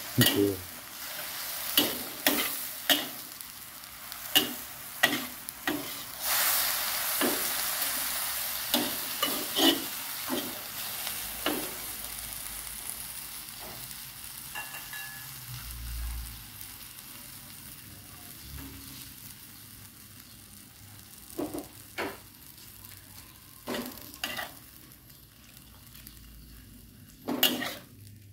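Food frying and sizzling in a pan as it is stirred, with irregular sharp knocks and clinks; the sizzle is strongest from about six to twelve seconds in and fades toward the end.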